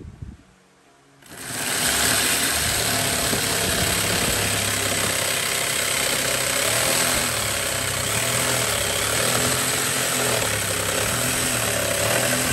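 Corded electric jigsaw starting up about a second in and then cutting steadily through plywood along a marked line, sawing out a latch slot.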